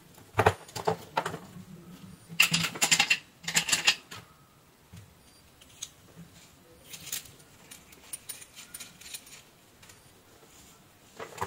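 Clinks and rattles of two soldering irons being lifted out of their metal stands and handled, loudest in a cluster of rattling clicks about two to four seconds in, followed by fainter scattered ticks and taps.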